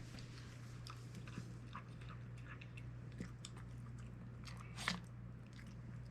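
A dog eating soft rehydrated food from a bowl: faint, scattered wet chewing clicks, with one sharper knock about five seconds in, over a steady low hum.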